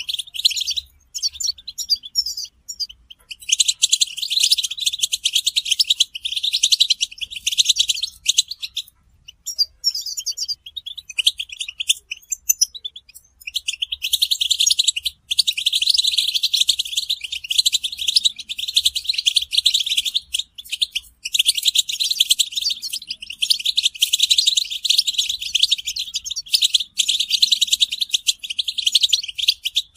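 A group of European goldfinches twittering in fast, dense chattering song: the goldfinches' mating and readiness calls. It is broken by a few short pauses, the longest a little before the halfway point.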